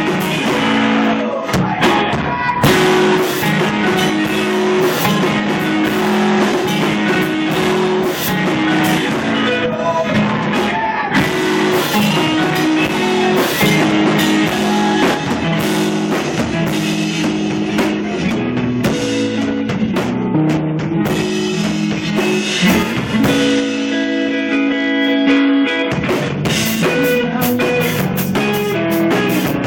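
Live rock band playing loudly: electric guitar over a drum kit, with the drum hits growing busier near the end.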